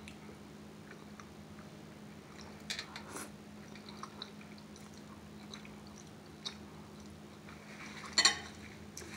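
Close-up eating sounds: ramen noodles slurped about three seconds in, then soft chewing, with a louder slurp near the end. A faint steady hum underneath.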